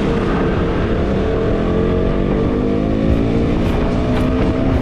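KTM 250 Duke's single-cylinder engine running under way as the bike accelerates, its pitch climbing slowly and evenly.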